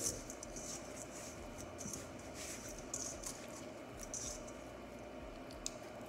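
Hand rubbing salt into whole raw fish in a stainless steel bowl, salting them to ferment into pla ra. Wet squishing with irregular gritty scrapes, and one sharp tick near the end.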